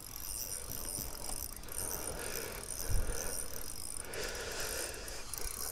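Spinning reel working with a rattly, ratcheting sound while a hooked asp pulls against a bent rod, with a low bump about three seconds in.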